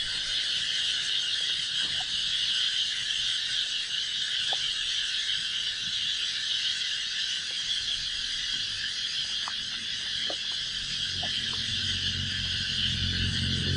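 Steady, high-pitched chorus of insects droning, with a few faint ticks and a low rumble swelling near the end.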